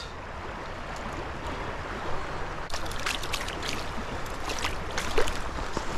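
Creek water running steadily, with a scatter of splashes and small clicks starting about halfway through.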